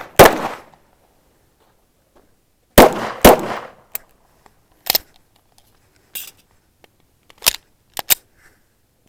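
Gunshots fired one at a time on a timed shooting course. There is a loud report just after the start and two more about three seconds in, each with an echoing tail, then shorter, quieter cracks around five, seven and a half and eight seconds.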